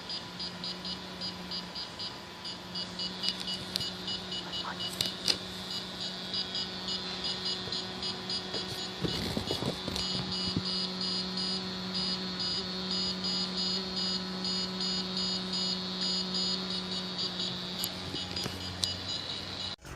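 Piezo capsule of an Arduino earthquake detector beeping rapidly and high-pitched as its alarm, the sign that it has sensed vibration, over a steady low hum.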